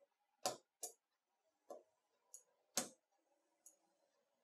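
Plastic spudger tapping and prying at the Nokia Lumia 930's circuit board and frame: about six short, sharp clicks, the two loudest about half a second in and just under three seconds in.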